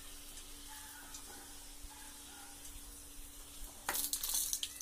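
Hot oil sizzling softly in a kadhai as a puri deep-fries, with a louder burst of crackling about four seconds in as the puri is lifted out of the oil on a spatula.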